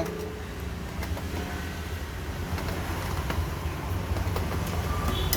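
Steady low background rumble, with a few faint clicks from screws being loosened with a flat-blade screwdriver.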